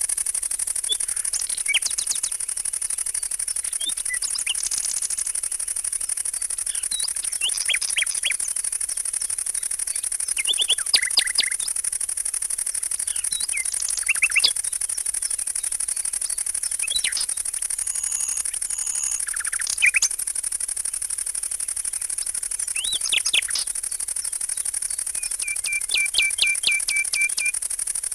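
Songbirds chirping and calling in short, scattered phrases, with a fast trill of repeated notes near the end, over a steady high-pitched hiss.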